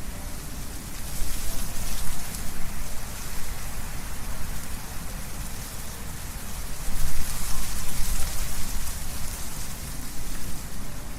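Wind blowing through trees, the leaves rustling with a steady hiss and a low rumble, in gusts that swell about a second in and again around seven seconds.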